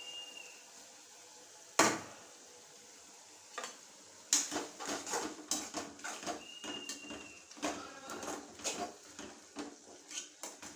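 A metal spoon stirring and scraping in a cooking pot, with irregular clinks against the pot's side. About two seconds in comes one sharp, loud knock.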